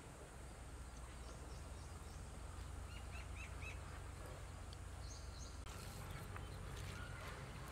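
Quiet outdoor ambience: a steady low rumble with a few short bird chirps, a quick run of four about three seconds in and a higher pair a couple of seconds later. Faint clicks come in near the end.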